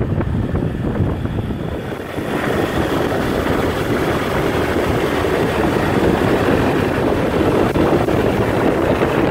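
Motorbike ride with the engine running and wind buffeting the microphone, a steady rushing drone that grows louder and fuller about two seconds in.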